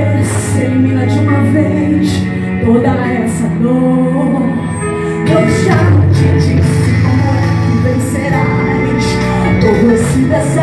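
A woman singing a gospel song into a microphone over backing music with long held chords, amplified through a church sound system.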